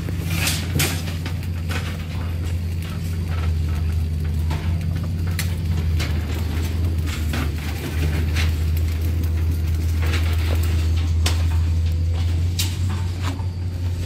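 A steady low engine hum from site machinery, with scattered sharp clicks and knocks on top.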